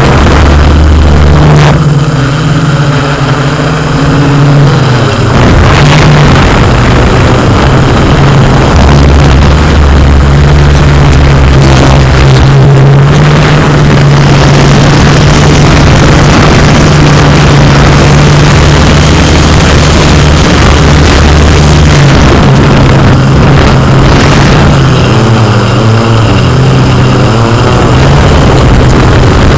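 Yuneec Q500 quadcopter's electric motors and propellers in flight, heard close up as a loud, steady hum with wind rushing over the microphone.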